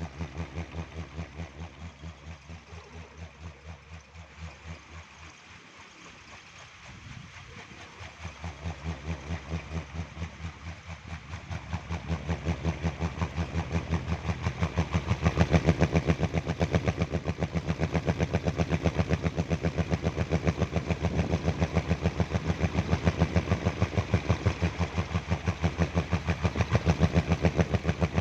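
Kolecer (pindekan), a large wooden wind propeller on a pole, spinning in strong wind with a low throbbing hum that pulses two or three times a second. It dies down a few seconds in, then picks up speed and grows louder from about halfway through.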